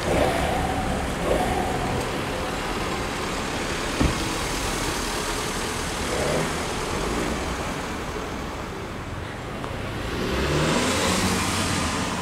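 Road traffic running steadily, with one vehicle passing close and swelling louder near the end, and a single sharp click about four seconds in.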